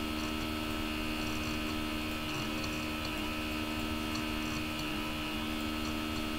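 Steady electrical hum with several constant tones over a faint hiss, unchanging throughout.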